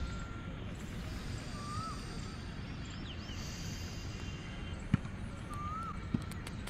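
Open-air ambience: a steady low background hum with a bird calling, a short up-and-down chirp heard twice about four seconds apart. Two sharp clicks come in the second half.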